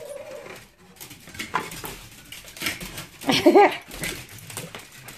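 Small pet dogs whining in excitement while waiting for their food, with one short, louder pitched whine about three and a half seconds in, amid light knocks and clicks.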